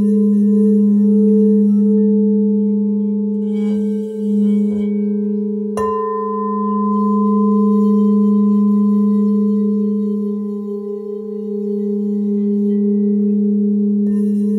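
Crystal Tones alchemy crystal singing bowls ringing: a steady low tone with a higher tone above it, sustained throughout. About six seconds in, a sharp mallet strike sets off a fresh, higher ring that slowly fades.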